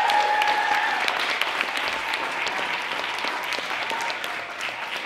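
Audience applauding at the end of a dance performance, with a long, high cheer held over the clapping in the first few seconds. The applause slowly fades.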